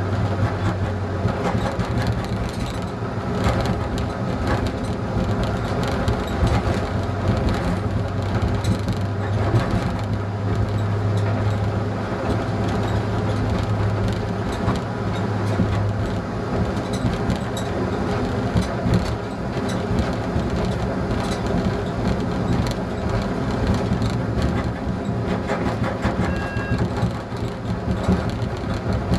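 ČD class 854 diesel railcar running at speed, heard from its driving cab: a steady engine hum over the rumble and clicking of the wheels on the rails. The low hum drops away about halfway through, and a short high beep sounds near the end.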